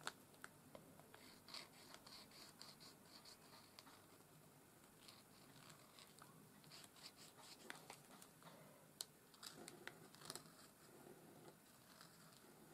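Faint, scattered scratching and tapping of a white paint-marker tip on card as short strokes and dots are drawn by hand, over near-silent room tone.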